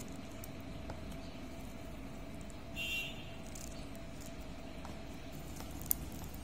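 A fork stirring and lifting instant noodles in a bowl of water over a steady low hum. There is a short squeak about three seconds in and one sharp clink near the end.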